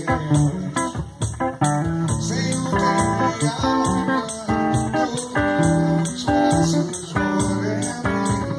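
Electric guitar playing a melodic instrumental line over a cajón beaten with drum rods, keeping a steady beat.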